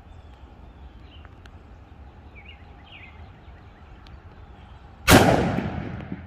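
A single .44 Magnum revolver shot about five seconds in, sudden and loud, its report dying away over about a second. Before it, only a low outdoor background.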